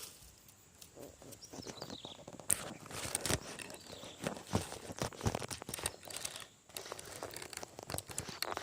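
Close, irregular rustling and crackling with scattered sharp knocks, the handling noise of a phone being moved and propped into place right at the microphone. It starts about a second in and gets busier after a couple of seconds.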